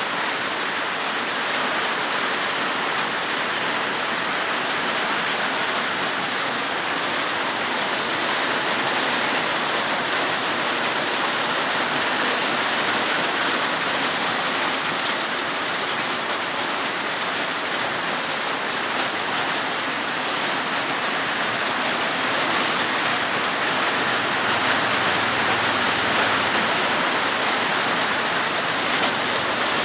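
Rain falling steadily, a dense, even hiss that swells slightly about three-quarters of the way through.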